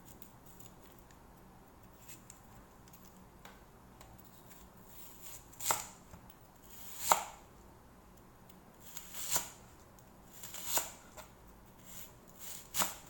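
Kitchen knife slicing half an onion into wedges on a cutting board. After a few quiet seconds come about five or six separate cuts, a second or two apart, each ending in a crisp crunch as the blade goes through the onion layers and meets the board.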